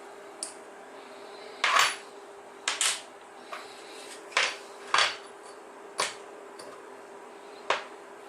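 Small metal pieces clinking and knocking against a hard work surface, about nine separate clacks, the loudest about two and five seconds in, over a faint steady hum.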